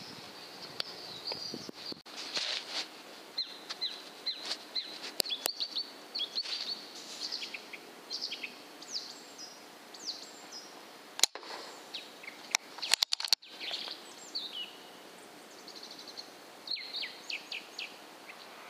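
Small birds chirping and singing throughout. About eleven seconds in comes a single sharp crack, the loudest sound here, typical of an air rifle shot, followed by a few quieter clicks.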